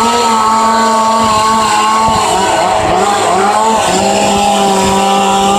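Two-stroke chainsaw running at high revs while cutting through a tree limb, a steady high engine note that wavers up and down around the middle and then settles a little lower.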